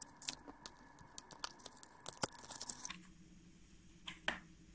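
A small cardboard box's seal being picked and torn open by hand: a quick run of crackling snaps and tearing for about three seconds, then a lone click near the end.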